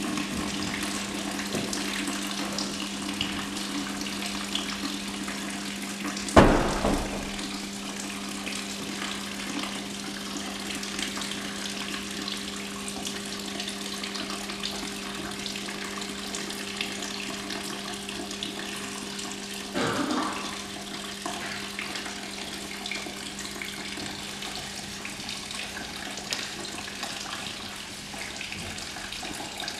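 Coolant draining from a Series 2 E-Type Jaguar's opened radiator drain tap into a plastic bucket, a steady run of pouring water, over a steady low hum. A sharp knock about six seconds in is the loudest sound, with a fainter one about twenty seconds in.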